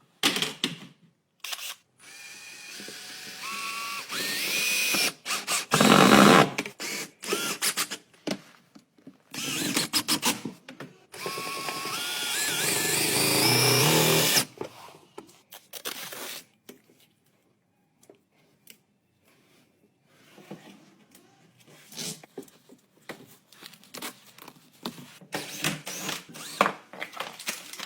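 Small electric power tool motor running twice for a few seconds at a time, its whine climbing in pitch in steps as it speeds up, with clicks and knocks of handling in between.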